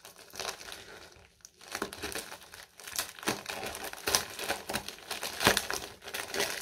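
Plastic packaging crinkling and rustling as it is handled and unwrapped, with irregular crackles that get busier and louder about two seconds in.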